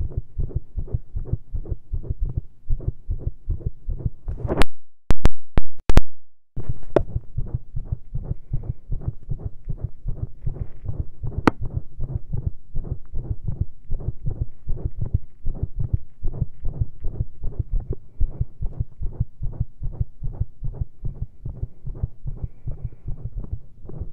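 A human heartbeat heard close up through a stethoscope, beating fast and irregularly with frequent skipped beats (PVCs) after heavy caffeine and straining against pressure. About four to six seconds in, a few loud knocks, the loudest sounds here, break in before the beating resumes.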